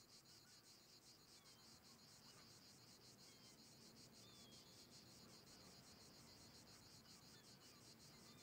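Faint crickets chirping in a steady, even pulse of about five chirps a second.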